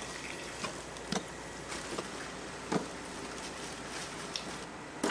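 Ramen shop kitchen sounds: a steady low hiss with about six light knocks and clicks of utensils and cookware spread across the few seconds, the sharpest just after a second in and near the three-second mark.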